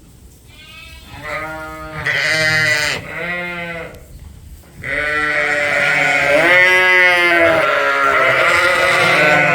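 Sheep bleating. Several short separate bleats come first, then from about halfway through a long stretch of many sheep calling over one another, louder.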